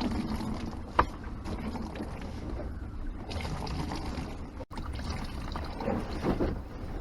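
A small sailboat under way in a rough sea, heard from inside the cabin as a steady low rumble of the hull working. A single sharp knock comes about a second in.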